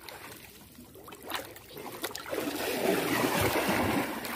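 Water splashing and trickling as a gill net with fish caught in it is hauled up out of the water. There are a couple of light knocks early on, and the splashing grows louder about halfway through.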